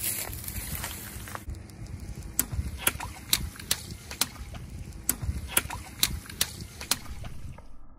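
Car tyre rolling over a row of water-filled balloons, bursting them with about ten sharp pops spread over the second half, over a steady low rumble of the car.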